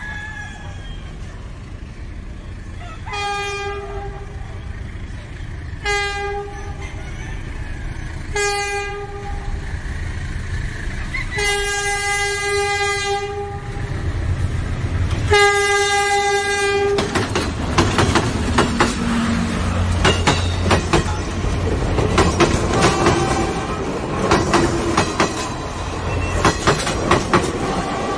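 Locomotive horn sounding three short blasts and then two longer ones. The train then passes with a low rumble and a rapid, rhythmic clickety-clack of wheels over rail joints.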